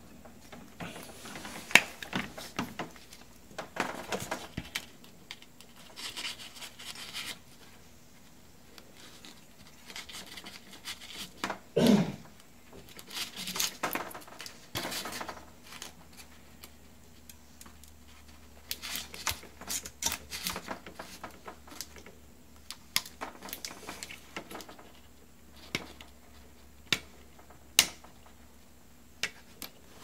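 Hands working a refrigerator water inlet valve, its plastic body and sheet-metal bracket: scattered clicks, taps and short scrapes and rattles, with the loudest knocks about two seconds in and near the middle.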